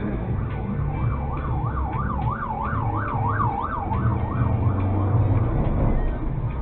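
An emergency vehicle's siren in a fast up-and-down yelp, about three sweeps a second. It grows louder toward the middle and fades out about five seconds in. A low steady rumble of the car's engine and road noise runs underneath.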